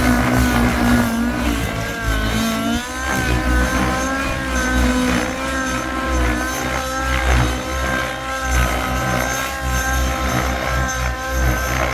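XL Power Specter V2 Nitro RC helicopter's two-stroke glow (nitro) engine running at high revs during aerobatic flight. Its pitch wavers up and down, dipping about three seconds in, as the helicopter swoops and flips.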